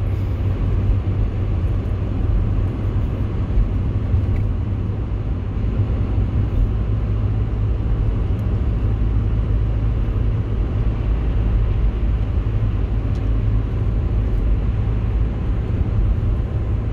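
Steady low rumble of a car in motion, heard from inside the cabin: tyre and engine noise on a wet road.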